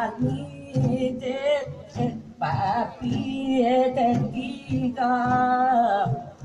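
Live singing: long, wavering held notes sung one after another, with a low pulse under the voice.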